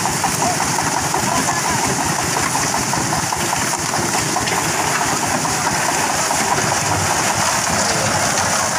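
Mobile concrete mixer running steadily, its engine turning the drum with wet concrete churning inside. Partway through, the drum is tipped and the concrete slides out.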